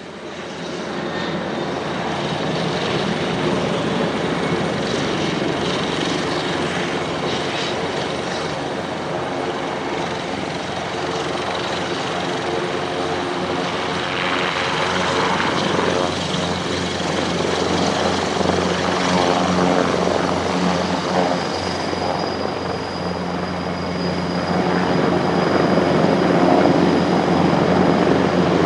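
Airbus EC225 Super Puma helicopter's twin turboshaft engines and rotor running steadily on the ground, with a thin high turbine whine and a slight rise in level near the end.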